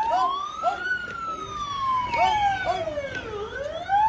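Vehicle siren on a slow wail, rising in pitch for about the first second, falling until near the end, then rising again, with short chirping notes repeating about twice a second alongside it.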